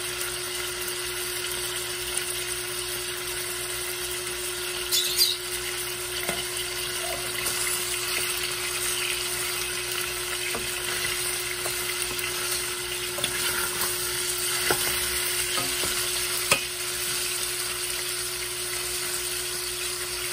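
Chicken drumsticks sizzling in oil in a stainless steel saucepan, turned with a wooden spatula that knocks against the pan a few times. A steady hum runs underneath.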